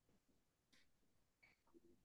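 Near silence: room tone, with a few very faint brief sounds.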